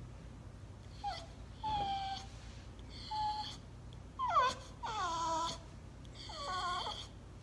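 English bulldog whining in about six high-pitched cries, most falling in pitch. He wants his rope toy, which is stuck in a plastic bin.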